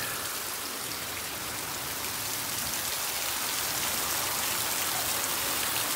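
Heavy rain pouring down in a steady, dense hiss, getting a little louder toward the end.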